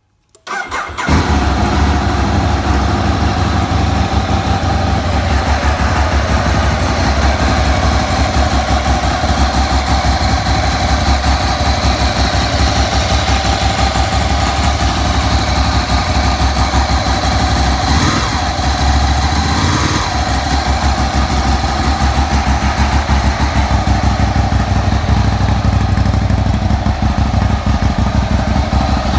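2008 Ducati 848's 849 cc L-twin engine starting about half a second in and then idling steadily. The idle carries the abnormal engine noise that the owner traced to main bearings assembled with the wrong preload.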